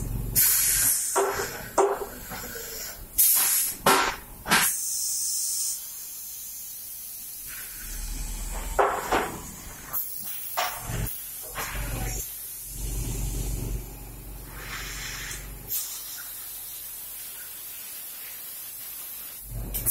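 Cold box core shooter machine cycling: several sharp hisses of compressed air from its pneumatic valves and cylinders, most in the first six seconds, mixed with metal clanks and knocks of the moving core box, over a low machine hum.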